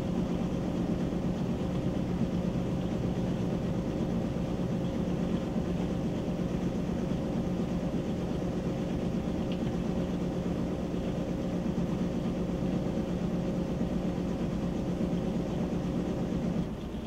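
Whirlpool WTW7300DW top-load washer spinning its basket in the spin cycle: a steady drive hum with a low tone. It drops away a little just before the end.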